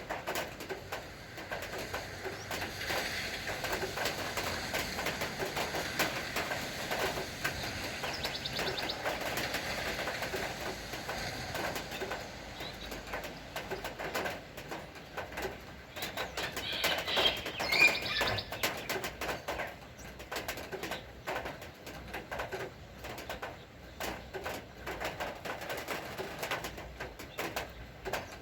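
Steady rain pattering, dense with small drip clicks, while birds chirp and call, with a short cluster of chirps about two-thirds of the way through.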